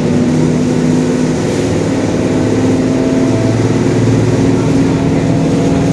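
Mercedes-Benz OF-1721 Bluetec 5 bus under way: the diesel engine runs steadily with a droning whine from the differential, with a whine that rises slightly in pitch about halfway through.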